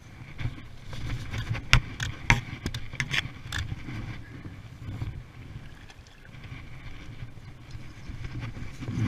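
Shallow muddy floodwater sloshing and splashing as a shot fish is hauled in on a bowfishing line, with several sharp knocks and splashes in the first few seconds. The bowfishing reel is being cranked near the end.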